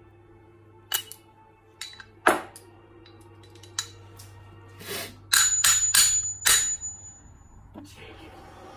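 Steel punch and die set being handled and fitted together for punching the centre out of a silver coin: scattered hard metal clicks and clinks, then four sharp metallic strikes in quick succession about five and a half seconds in, with a high ring that hangs on briefly.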